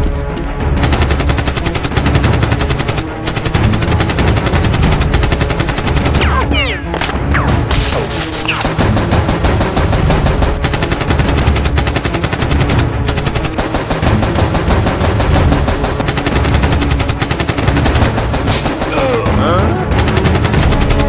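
Sustained rapid automatic gunfire sound effects, a dense unbroken rattle of shots.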